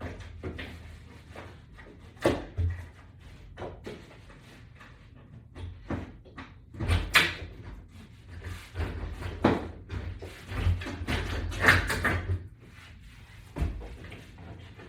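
Irregular knocks, clunks and short rattles of hardware being handled as toggle bolts are fed through the holes of a wall-mount bracket. There are about a dozen sharp knocks at uneven spacing, the loudest about halfway through and again about four fifths of the way in.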